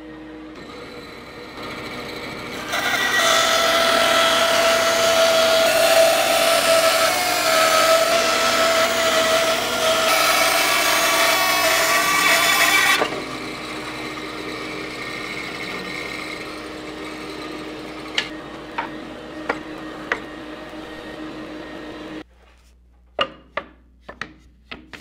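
Bandsaw running and cutting through a thick laminated wood blank for about ten seconds, loudest from a few seconds in. It then runs on more quietly without cutting, with a few light clicks. Near the end the saw noise stops and a quick series of sharp wooden clacks follows as the cut curved strips are handled.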